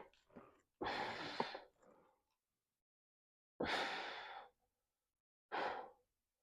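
A person breathing out heavily in several separate breaths, the longest starting about a second in, as if straining through an exercise.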